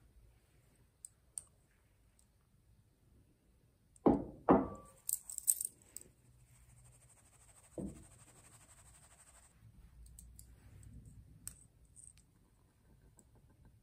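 A metal mesh sieve knocking twice against a glass mixing bowl, with small metallic clinks, then a soft steady hiss as flour is shaken through the mesh, and one more knock partway through.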